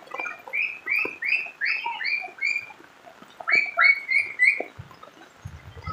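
A small animal's short, high squeaky calls, about three a second: a run of about seven, a pause of about a second, then four more, over a faint rain hiss.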